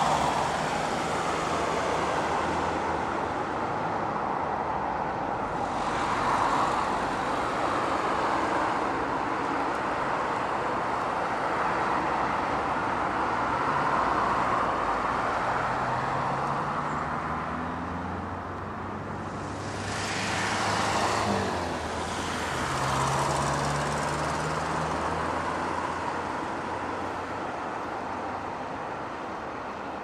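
Road traffic: cars passing one after another, their tyre noise and engine hum swelling and fading several times, with the engine pitch sliding up and down as each goes by.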